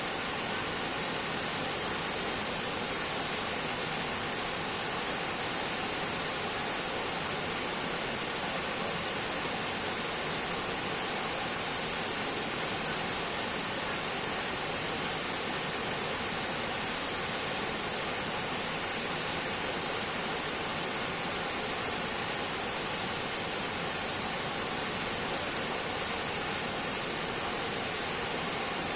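Waterfall rushing, a steady, even roar of falling water that does not change.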